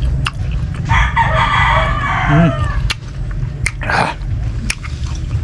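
A rooster crows once, one call of about two seconds that drops in pitch at the end, over a steady low hum. A short rush of breath and a few sharp clicks of eating come near the end.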